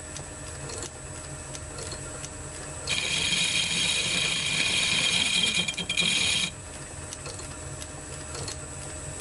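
Metal lathe turning the spoke flange off a 1930s Sturmey-Archer K hub shell held in a four-jaw chuck, taking light cuts of about a tenth of a millimetre. The lathe hums steadily with a faint tick about once a second. About three seconds in, the tool bites with a high-pitched, ringing squeal for about three and a half seconds, then it cuts off suddenly.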